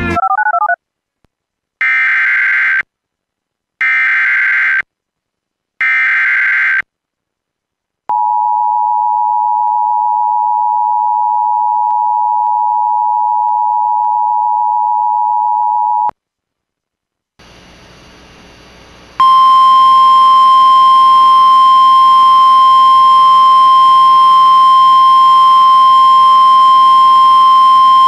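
Emergency Alert System activation tones. First come three one-second bursts of warbling SAME header data, each sent once, then the steady two-tone EAS attention signal for about eight seconds. After a short gap, a hissy relayed NOAA Weather Radio feed fades in, and its single steady warning alarm tone comes in about three seconds later.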